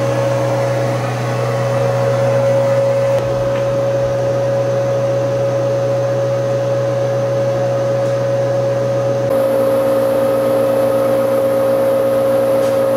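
Motor-generator (MG) of an early JNR 115 series electric train car running: a steady hum with a constant whine on top. About nine seconds in the mix of tones shifts, with a higher hiss and an extra mid tone joining.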